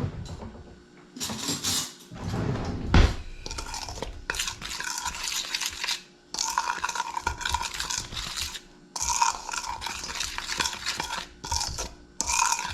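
A utensil stirring and scraping a dry flour-and-spice coating mix around a mixing bowl in repeated strokes, the bowl ringing faintly, with one heavy knock about three seconds in.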